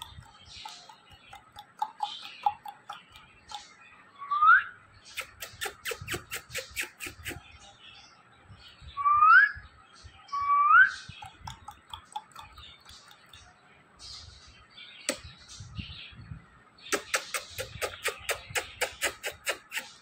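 Short upward-sweeping whistles, three of them, and two runs of rapid sharp clicking at about five a second, traded between a man and a pet rose-ringed parakeet held at his mouth.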